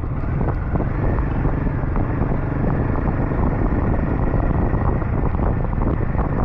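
Royal Enfield 452 motorcycle being ridden at a steady speed: the engine running under a constant rush of wind over the microphone, with no change in pace.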